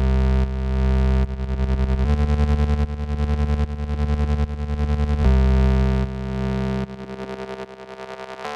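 Electronic music: sustained, layered synthesizer tones that shift to new chords every second or two, some passages pulsing rapidly in a fast tremolo. The deep low notes drop out and the music grows quieter near the end.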